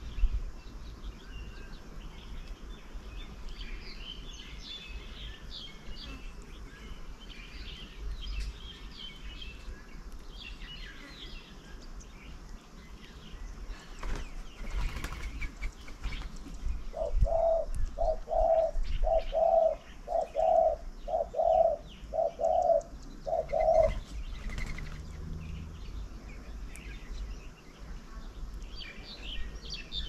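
Birds chirping and twittering around a bird table throughout. Past the middle, a louder, lower call of about nine evenly spaced hooting notes runs for some seven seconds.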